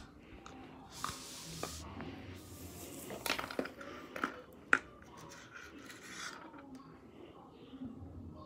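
Scattered light taps, clicks and rustles of a pencil and small objects being handled on a tile floor, with one sharper tap a little under five seconds in.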